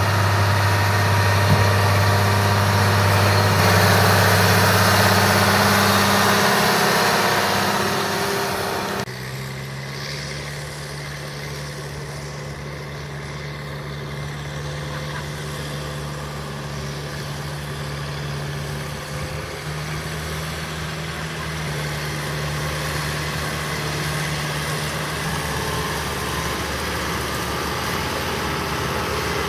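Tractor diesel engines running while towing mud-stuck vehicles: a large Case IH 8920 runs loud and steady at first, then about nine seconds in it cuts off suddenly to a quieter, steady drone from a smaller tractor pulling a pickup through the mud.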